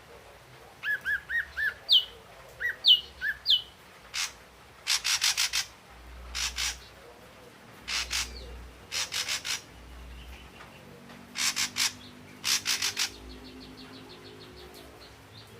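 Ashy drongo calling: short arched whistles and quick downward-sliding whistled notes, then harsh, rasping notes given in rapid groups of three to five. A faint low hum runs underneath in the second half.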